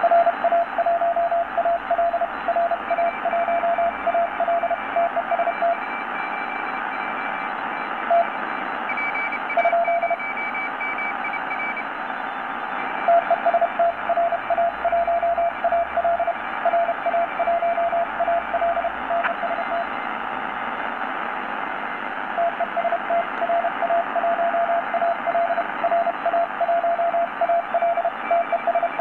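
Morse code (CW) received on a Tecsun PL-600 shortwave radio tuned to 3548 kHz in SSB mode: a mid-pitched tone keyed on and off in dots and dashes over steady shortwave hiss, with a fainter, higher-pitched second Morse signal alongside. The keying stops for a few seconds twice, once before the middle and once after it.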